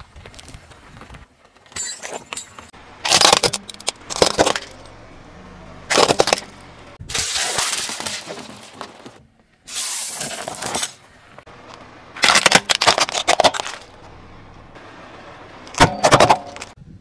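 A car tyre slowly rolling over and crushing small objects, among them a clear plastic cup, in a string of separate crushes. Each gives a short burst of cracking and crunching, with quieter gaps between.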